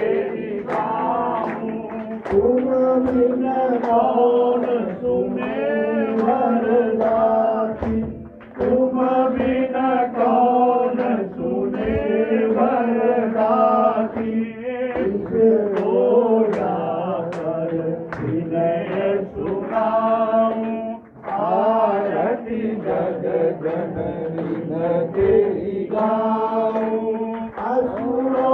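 Hindu devotional singing during Navratri worship, a sung melody over instrumental accompaniment and a steady percussive beat, with brief pauses between lines.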